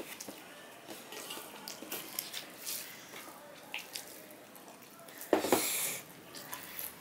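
Fingers mixing and squeezing rice with a mashed vegetable paste on a steel plate: soft wet squishing with small clicks, then a short, louder wet mouthful sound about five and a half seconds in as a handful is eaten.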